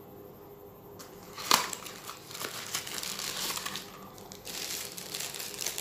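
Thin plastic wrapping crinkling as a silicone bottle nipple is unwrapped from its packaging, in two stretches with a short pause between, after a single sharp click about a second and a half in.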